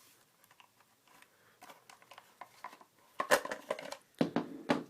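Clicks, knocks and rattles from handling a Cyma MP5 airsoft gun while its battery is being taken out. Light scattered clicks first, then two loud clusters of knocks, one a little after three seconds in and one just past four seconds in.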